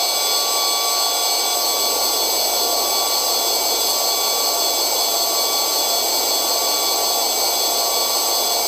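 Steady static hiss from an open radio channel, with several faint steady whistling tones in it. It holds at an even level and cuts off abruptly near the end.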